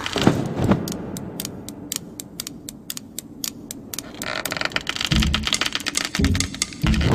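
Knitting needles clicking steadily, about four clicks a second, then faster and denser clicking after about four seconds, with a few dull low thuds near the end.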